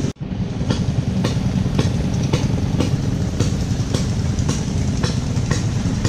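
An engine running steadily with a low rumble, and a sharp click repeating evenly about twice a second.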